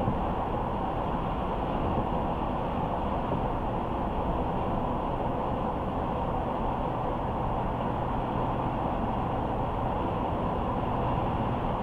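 Steady road noise of a car driving at speed: tyre and engine noise with a low hum that stays even throughout.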